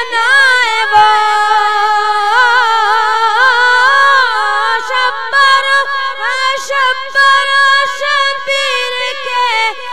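A boy singing a naat unaccompanied into a microphone, holding long ornamented notes that waver and slide in pitch, with no clear words.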